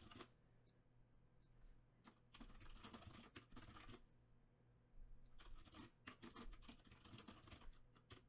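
Faint typing on a computer keyboard in two runs of rapid key clicks, the first starting about two seconds in and the second a little past halfway.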